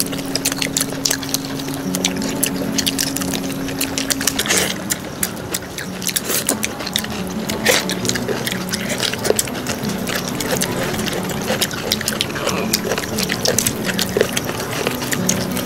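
Liquid pouring and splashing, with many small irregular clicks and knocks over a low steady hum.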